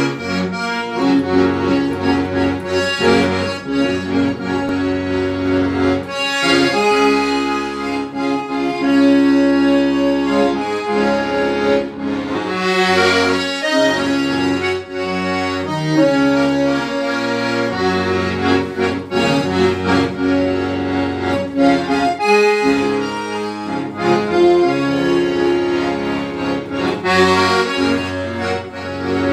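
Accordion playing a tune: a melody over held chords and bass notes.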